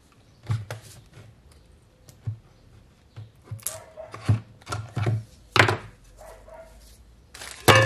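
Irregular clicks, taps and scrapes of a small metal tool prying at the metal casing of an EDC16 engine control unit, ending with the cover coming free and being lifted off. The loudest knocks come about five and a half seconds in and near the end.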